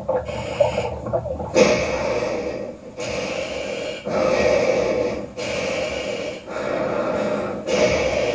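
Heavy, rhythmic breathing from a film soundtrack: a string of hissing breaths, each about a second long, with short pauses between them.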